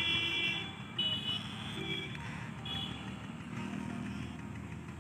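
A horn sounding four short toots, the first the longest and the later ones fainter, over steady outdoor background noise.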